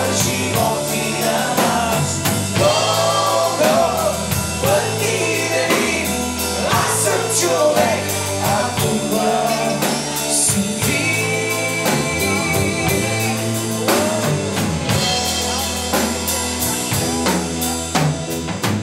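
Live rock band playing a song: drum kit keeping a steady beat under bass, electric and acoustic guitars and keyboard, with a melodic lead line on top. The lead holds one quivering high note for a couple of seconds about halfway through.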